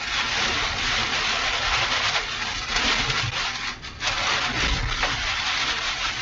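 Steady rushing noise of strong thunderstorm downdraft winds buffeting the vehicle, with a brief lull about four seconds in.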